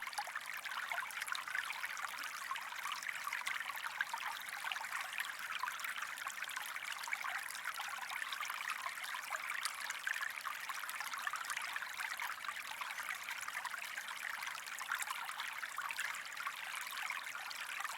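Steady trickling, rushing water, thin-sounding with no low end.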